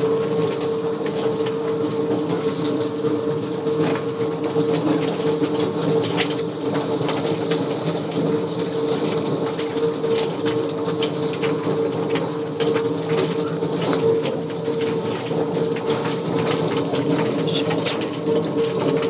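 Stainless-steel drum chicken plucker running: a steady electric-motor hum as the plate spins, with irregular light knocks and slaps as several chicken carcasses tumble against the rubber plucking fingers.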